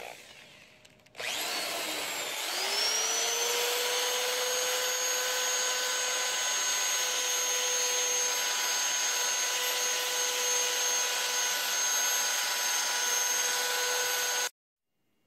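High-speed rotary tool spinning an abrasive sanding roll inside an aluminium cylinder head's exhaust port, smoothing the port walls after carbide grinding. The motor starts about a second in, its whine rising as it spins up, then runs steadily with a hiss of sanding and cuts off suddenly near the end.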